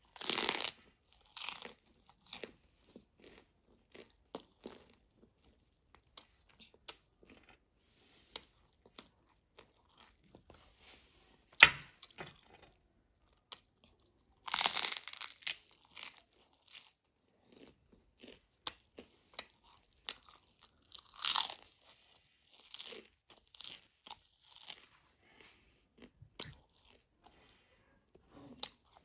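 A person eating fast and close to the microphone: chewing and crunching, with many small mouth and food clicks and a few louder bursts of munching, the longest about halfway through.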